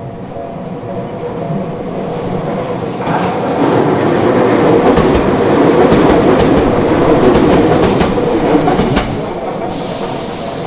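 A Tokyu Ikegami Line electric train passes over the level crossing. The rumble builds to a peak in the middle, with the wheels clacking over the rail joints, then fades. The crossing's electronic warning bell rings through it, drowned out at the loudest point, and a high whine starts near the end.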